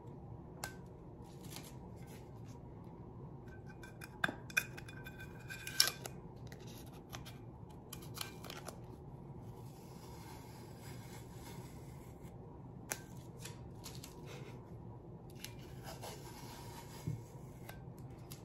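Blue painter's tape being peeled off a glitter-coated stainless steel tumbler: faint scattered crackles and small clicks, with a brief run of sharper clicks about four to six seconds in.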